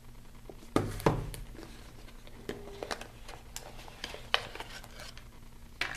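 Hands handling a cardboard earphone box and its packaging: two sharp knocks about a second in, then scattered light clicks and rustles.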